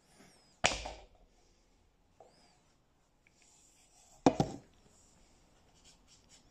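Cardboard and clear plastic phone packaging being handled: two sharp clacks, one about half a second in and a quick double clack about four seconds in, with faint rustling between.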